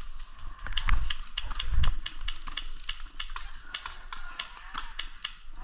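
Irregular sharp clicks and snaps, several a second, with a few dull low thumps in the first two seconds.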